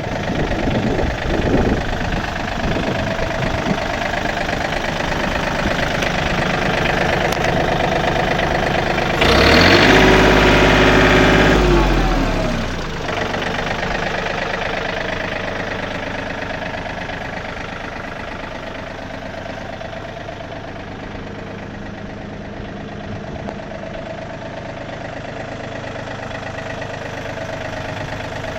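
2001 John Deere 4300 compact tractor's diesel engine running at idle; about nine seconds in it speeds up sharply, holds higher revs for about three seconds, then drops back to idle.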